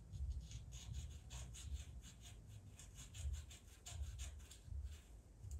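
Pastel pencil stroking on sanded pastel paper: a quick run of short, faint scratches, several a second, over soft low thumps.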